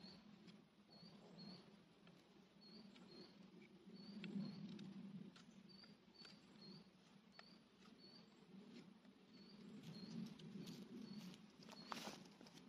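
Faint short scrapes of a Cold Steel Trail Hawk tomahawk head, held off its handle, shaving a piece of wood by hand. A bird repeats a short high chirp about once a second, and there is a louder rustle near the end.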